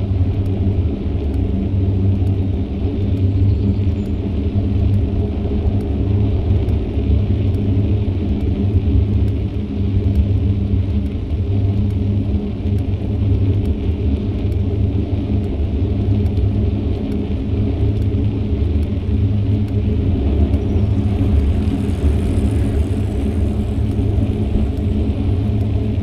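Steady low wind rumble and road noise on a bicycle-mounted action camera's microphone during a ride.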